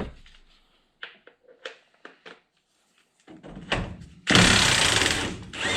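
A few light clicks and knocks of tools on metal, then about a second of loud, even, hissing power-tool noise.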